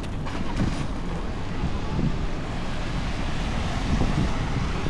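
Downtown street traffic noise: a steady rush of passing vehicles with low wind rumble on the microphone.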